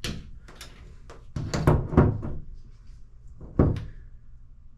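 A handheld shower head and its flexible metal hose knocking and clacking as they are seated into a wall-mount holder: a string of sharp knocks, bunched about two seconds in, with one more a second and a half later.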